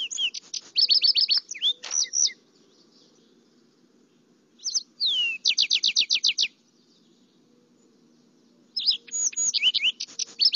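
Lark sparrow song: three phrases of clear slurred notes and fast trills, the notes rearranged from one phrase to the next, with pauses of about two seconds between them.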